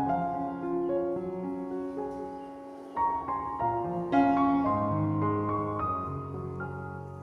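Background piano music, slow notes in soft phrases, with a fresh louder phrase about four seconds in.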